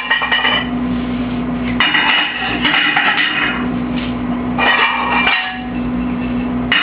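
Ceramic plates clinking and ringing against each other as they are unloaded from a dishwasher and stacked, in bursts every couple of seconds.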